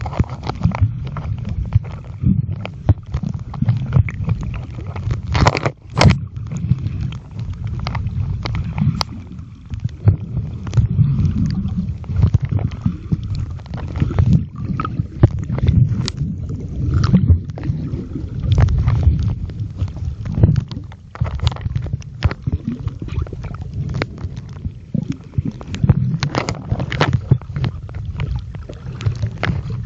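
Muffled low rumble of water moving around a mobile phone recording underwater, with frequent sharp clicks throughout.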